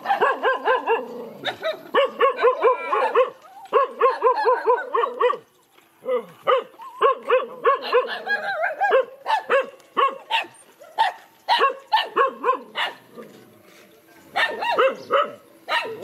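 Dogs barking in quick runs of short, sharp barks. There is a brief pause about five and a half seconds in, then more scattered barks.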